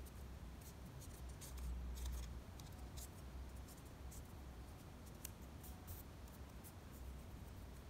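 Faint crinkling and rustling of a thin strip of origami paper as fingers unroll and straighten it, a scatter of short crackles over a low steady hum.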